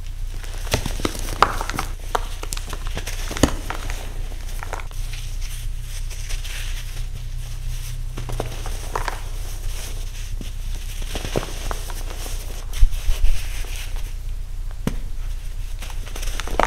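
Hands crushing and crumbling chunks of compressed, dyed baking soda over a metal bowl: dry, crumbly crunching and crackling in scattered bursts, with a brief cluster of louder knocks about two-thirds of the way through.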